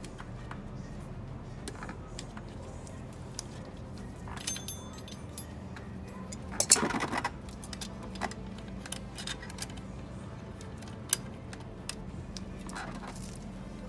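Clinks, clicks and scrapes of steel brake hardware and pliers as a return spring is fitted to a Subaru Forester's rear drum brake shoes. About four and a half seconds in there is a short metallic jingle, and around seven seconds a louder scrape and clank. A steady low hum runs underneath.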